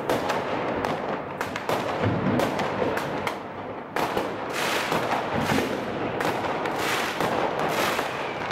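New Year's fireworks and firecrackers going off all around, a dense, continuous crackle of overlapping bangs and pops. It eases briefly just before about four seconds in, then comes back sharply.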